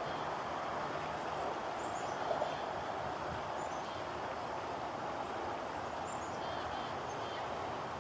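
Small birds giving short, thin, high-pitched chirps every second or so over a steady background rush.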